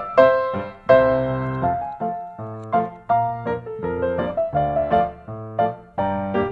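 Background piano music, a melody of separate notes with chords underneath.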